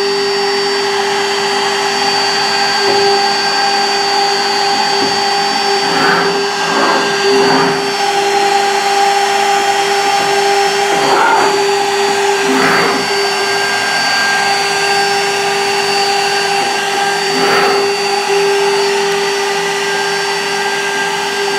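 CNC router running a program without cutting: its spindle gives a steady, constant whine while the servo-driven axes move, with a handful of short swells in the sound as the machine changes moves.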